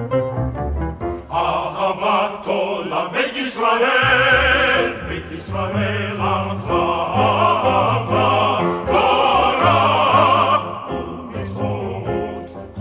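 Operatic male voice singing cantorial Hebrew liturgical music with wide vibrato over piano and instrumental ensemble accompaniment. The voice enters about a second and a half in after a few piano notes, holds long phrases, and drops out near the end, leaving the accompaniment.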